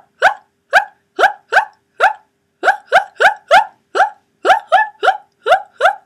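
A person's voice imitating a zebra's call: a rapid series of short yelps, about three a second, each dropping in pitch, with a brief break a couple of seconds in.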